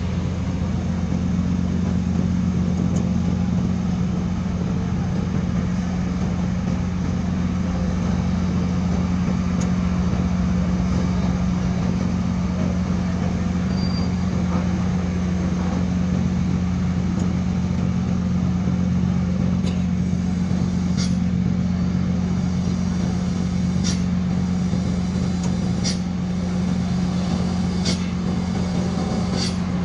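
Steady low diesel drone as a loaded cargo truck crawls down a roll-on/roll-off ferry's ramp, with several sharp knocks in the last ten seconds as its wheels cross the ramp.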